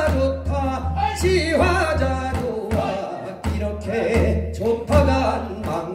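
A man sings a Korean folk song with a wavering vibrato, accompanied by strokes on a Korean barrel drum (buk).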